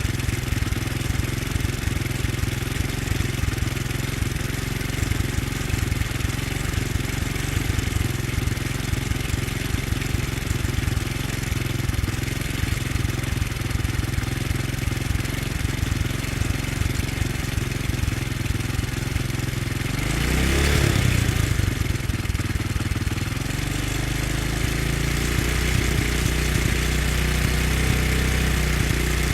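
Motorcycle engine idling with a rapid low pulse, given a brief rev about two-thirds of the way through, then running steadier and slightly faster near the end.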